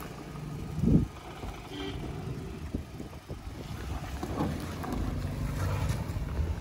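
An off-road SUV's engine running under load, a steady low hum with wind rumbling on the microphone. There is a short loud buffet about a second in.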